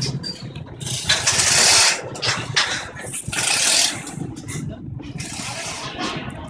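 City street traffic: vehicles passing with a low engine rumble, and two loud rushing swells, one about a second in and one just past three seconds in.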